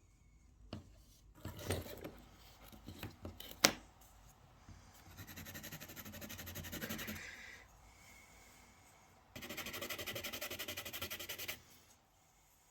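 Workbench sounds of a small diecast model being worked on: a few light clicks and one sharp knock, then two spells of fast, even rasping, like a file or small tool working metal.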